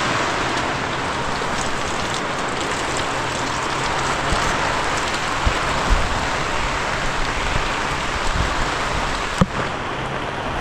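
Torrential rain pouring steadily, with a few low thumps about halfway through and a single sharp knock near the end.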